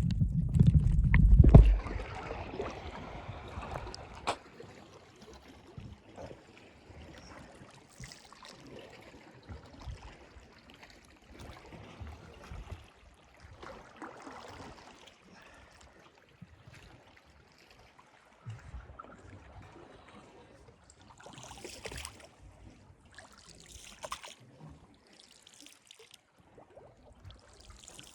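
Calm seawater lapping and trickling in small, uneven splashes. A loud low rumble fills the first two seconds.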